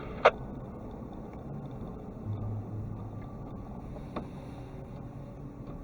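Steady low rumble of a vehicle running, with a sharp click just after the start and a fainter click about four seconds in.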